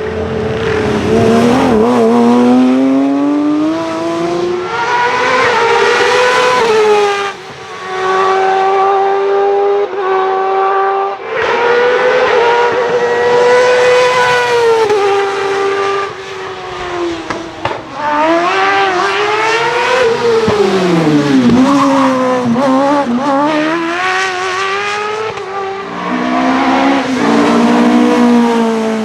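Racing car engine run hard up through the gears, its pitch climbing and then dropping at each upshift. About twenty seconds in, the pitch sweeps down and climbs back up.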